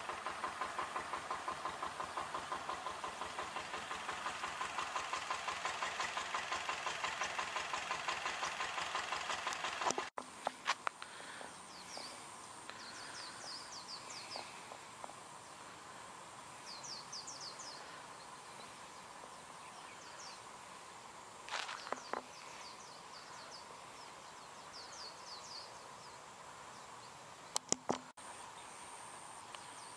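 A rapid, even pulsing sound for the first third, which then cuts off suddenly. After the cut come short, high bird chirps in small clusters over a faint steady high tone.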